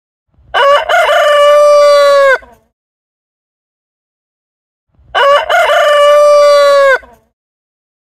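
Rooster crowing twice, about four and a half seconds apart. Each crow lasts about two seconds: a few short broken notes, then a long held note that cuts off. Dead silence between the crows.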